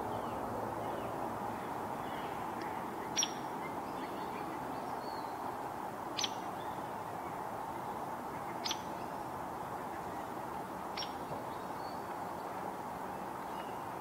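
A woodpecker giving four sharp, single call notes a few seconds apart, with a few fainter chirps between, over a steady background hum.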